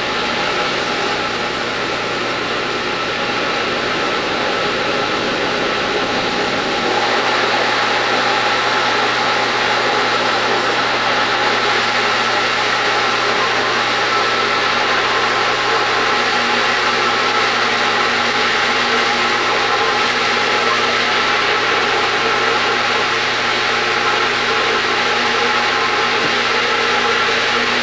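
Food processor motor running continuously, puréeing a thick chickpea mixture into hummus: a steady hum that gets slightly louder and brighter about seven seconds in.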